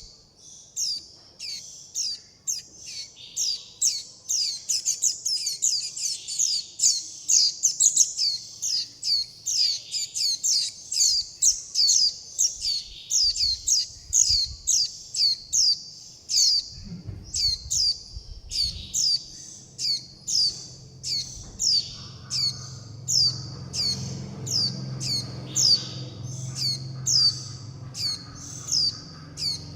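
Young white-eye chicks begging: a rapid, unbroken run of short, high, down-slurred calls, two to four a second, sometimes overlapping. A low hum comes in about halfway through.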